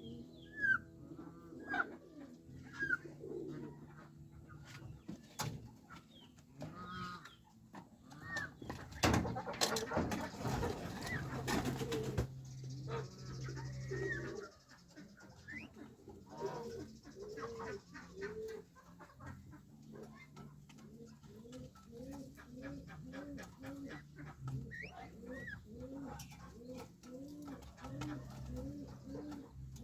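Birds calling: short high chirps early on, then a long run of short, low calls repeated about twice a second. A brief burst of rustling or splashing noise comes about a third of the way in.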